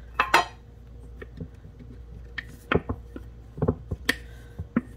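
A plastic lid clicking off a flour container, loudest as a sharp double click right at the start, followed by scattered light knocks and taps as containers are handled on a wooden counter.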